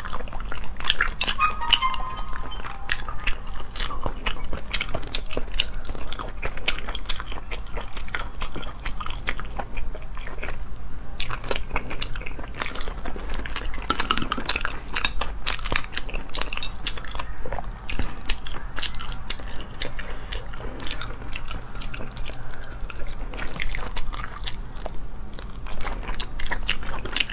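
Close-up eating sounds of sea snails: shells clicking and knocking as the meat is picked out with a toothpick, with wet chewing and lip smacking. Many short clicks follow one another in an uneven stream.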